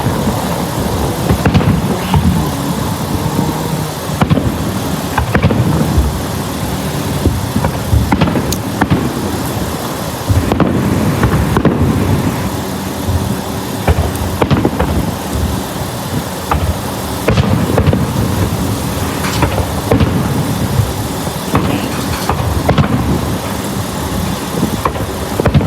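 Fireworks going off in a continuous barrage: overlapping low booms with sharp bangs every second or so over a dense rumble.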